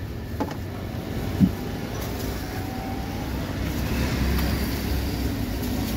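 Steady low rumble of street background noise, with one short knock about a second and a half in.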